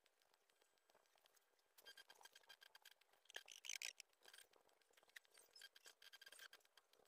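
Faint scratching of a pencil on paper: many quick short strokes, louder for a moment about three and a half seconds in.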